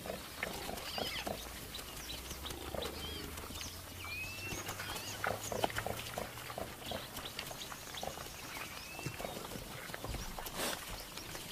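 Warthogs feeding in grass: many short crackles and clicks of grass being cropped and chewed amid rustling, with small grunts. A few brief high-pitched calls sound over a low steady hum.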